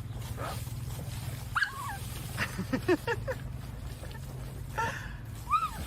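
A dog whining in short high cries, some rising and falling, about half a dozen times, over a steady low hum.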